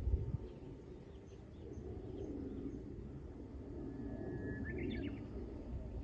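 Wild birds calling faintly over low wind rumble on the microphone, with a gust near the start. About four seconds in, one bird gives a held whistle that breaks into a quick chattering run, with small high chirps earlier.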